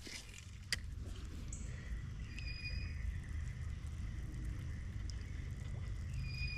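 A spinning reel being cranked to retrieve a cast spinner lure: a faint steady whine that starts about a second and a half in, over a steady low rumble. A sharp click comes just before it.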